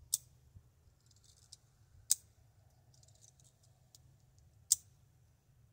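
Glock 19 airgun being handled during a reload: three sharp clicks about two and a half seconds apart, with fainter clicks and brief scraping between them.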